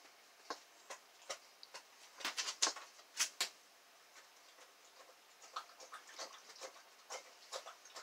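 Faint, irregular clicks and ticks from fingers handling a small brass lock spool pin and its spring, with a few quick clusters of clicks.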